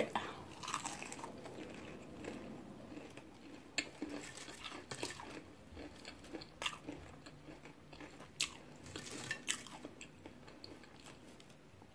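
A bite of battered, fried onion ring being chewed close to the microphone: quiet chewing with scattered, irregular crunches and mouth clicks.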